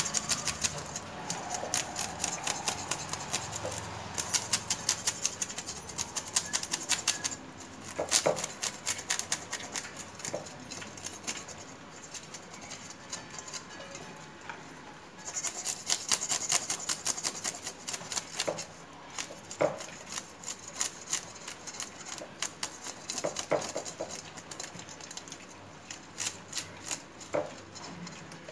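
Fish-scale remover scraped rapidly over small oodan fish, the scales rasping off in quick runs of many short strokes a second. The strokes are dense for the first seven seconds or so, lighter through the middle, and dense again from about halfway to near the end.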